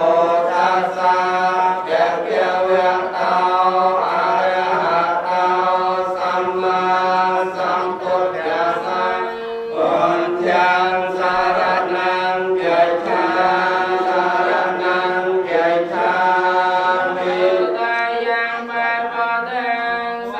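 Buddhist blessing chant by monks and a lay officiant, several voices reciting together into a microphone in long held phrases with brief breaks.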